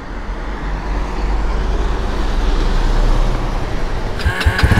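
Kawasaki Estrella's single-cylinder engine running under way with wind and road noise, growing louder. Near the end comes a sharper, brighter burst with a few rattling clicks.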